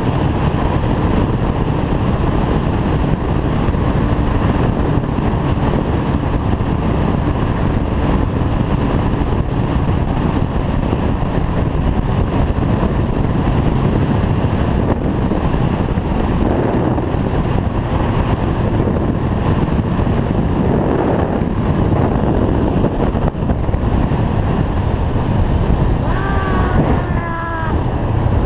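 Motorcycle riding at speed: steady wind rush on the microphone over the engine and road noise. Near the end come a few short falling chirps.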